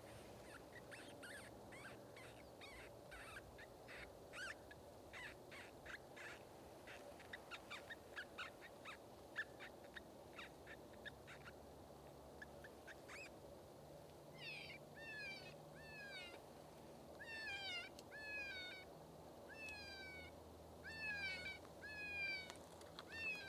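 Electronic predator call playing a faint, high-pitched animal distress sound. First comes a rapid run of short chirps, then, from about halfway, repeated falling squeals.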